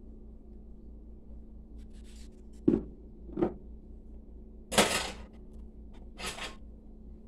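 Two short dull knocks, then two longer scraping rustles, the first of these the loudest, over a steady low hum.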